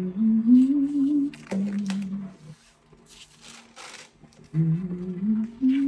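A person humming a slow tune: a note that scoops upward and is held, then after a pause of about two seconds a phrase of notes stepping upward. A soft rustle comes in the pause.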